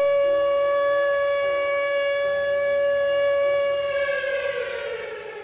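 Civil defence siren sounding one steady, held tone, then winding down near the end, its pitch falling as it fades away.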